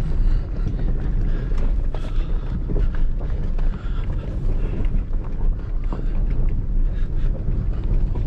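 Pickup truck heard from inside the cab as it descends a steep, rough dirt road in four-wheel drive: a steady low rumble with scattered knocks and rattles.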